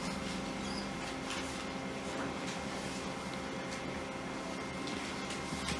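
Quiet room tone with a steady electrical hum, and a few faint rustles and small clicks of paper being handled at a lectern.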